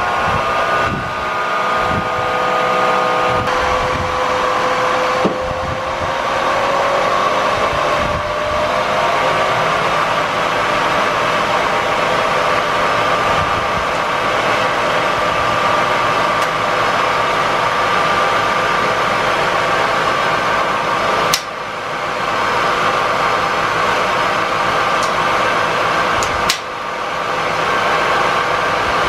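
A Bridgeport Series I milling machine with a 2J variable-speed head running, a steady mechanical whir and whine whose pitch slides down over the first few seconds. The sound changes abruptly three times, about 5, 21 and 26 seconds in.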